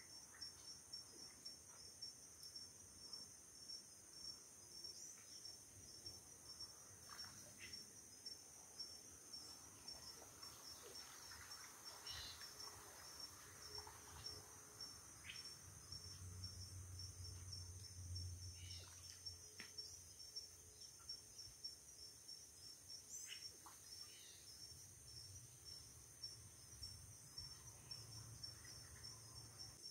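Faint, steady chorus of insects in a marsh, a high continuous chirring with a fast even pulse. A few short faint chirps are scattered through it, and a soft low rumble rises a little past halfway.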